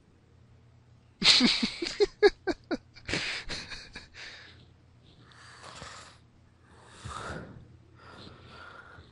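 A man's loud wordless vocal outburst about a second in, breaking into a quick run of short choppy pulses, then a series of heavy gasping breaths.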